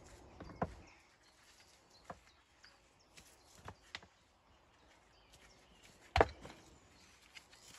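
Scattered sharp knocks of stone against stone as stones for a dry stone wall are handled and set, the loudest about six seconds in.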